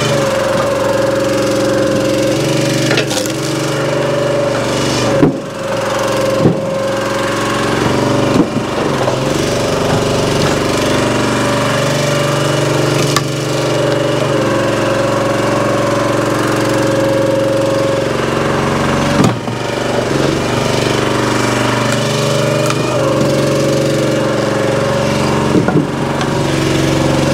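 Small gas engine of a hydraulic log splitter running steadily, its note shifting from time to time as the ram works through firewood. A few sharp knocks and cracks of wood stand out from the engine.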